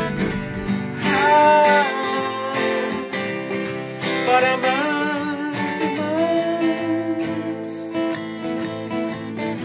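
Live acoustic guitar being strummed while a man sings over it, with some of his notes sliding and held.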